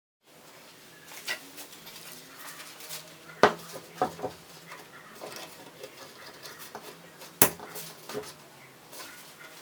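Irregular light clicks and clatter of hard objects being handled, with two sharp knocks about three and a half and seven and a half seconds in.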